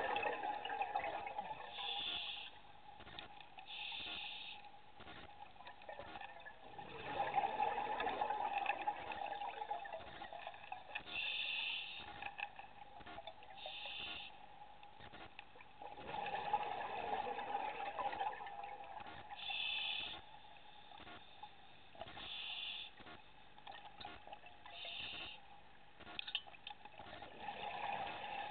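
Scuba regulator breathing underwater: exhaled bubbles gurgle out in long swells about every eight or nine seconds, with short hissing bursts in between, over a faint steady tone.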